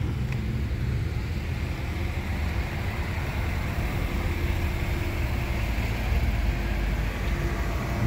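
Car engines running at low speed as cars drive slowly past, a steady low rumble. About seven seconds in, a steady higher engine note comes in as the next car approaches.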